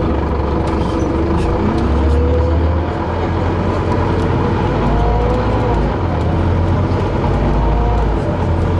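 City bus heard from inside its passenger cabin while driving: a steady low rumble of engine and road noise, with faint whining tones that rise and fall.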